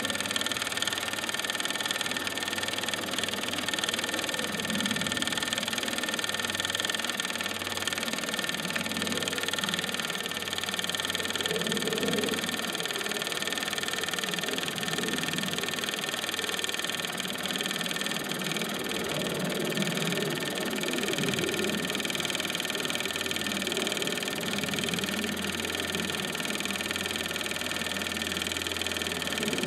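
A 1929 Meccano steam engine running steadily under steam, turning the line shafting and pulleys of a Mamod WS1 workshop through string belts: an even, unbroken mechanical running sound.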